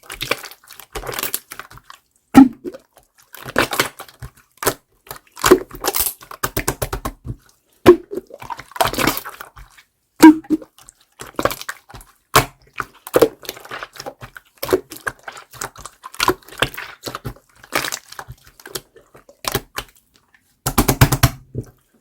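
Clear slime being squeezed and pressed by hand, making irregular sticky clicks, pops and squelches, with a quick run of pops near the end.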